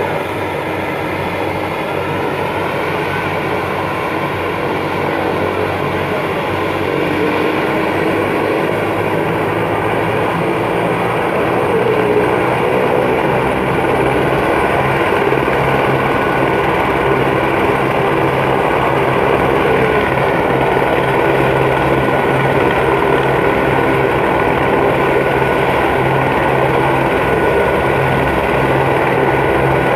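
Helicopter turbine engine and rotor running, a steady loud whine and rotor noise that grows louder about twelve seconds in.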